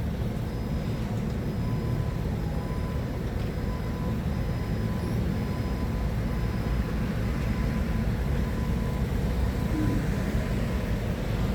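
Forklift engine running steadily with a low rumble.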